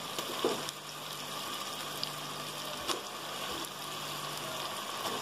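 Onion-tomato base frying in oil in an aluminium pot, a steady sizzle, as handfuls of marinated chicken pieces are dropped in, with a couple of brief soft impacts about half a second in and near three seconds.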